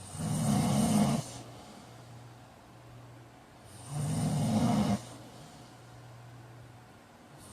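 A man snoring in his sleep: two loud snores, each lasting about a second, the second about four seconds after the first.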